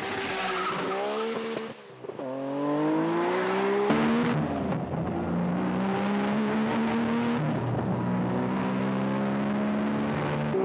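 Tuned Nissan Skyline GT-R's RB26DETT twin-turbo straight-six at full throttle, pulling up through the gears. The revs climb, drop at a shift, and climb again, with shifts about two, four and seven and a half seconds in.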